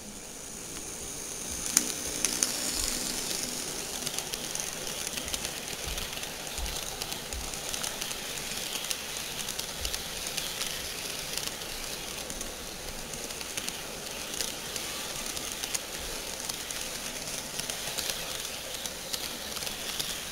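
HO scale model freight train rolling past close by on sectional track: a steady rattling rumble of small metal wheels with many light clicks, as at rail joints. A sharp knock stands out about two seconds in.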